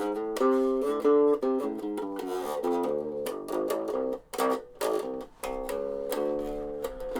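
Electric bass played through a small battery-powered Dean Markley practice amp on its clean setting: a run of single plucked notes, each held about half a second.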